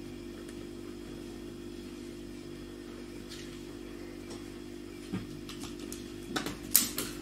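A marker writing on a whiteboard, with a few sharp squeaky strokes and taps near the end, over a steady low hum.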